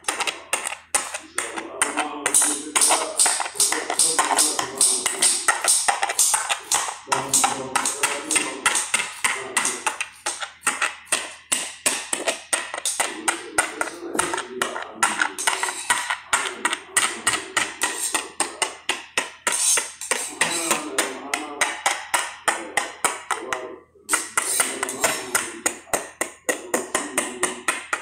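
A fork pricking pizza dough, its tines clicking against the bottom of a glass pie dish several times a second, with a brief pause near the end. Music plays underneath.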